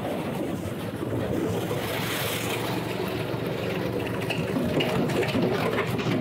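Small engine of a homemade ATV with steel-drum wheels running steadily under load, the drums churning through deep snow.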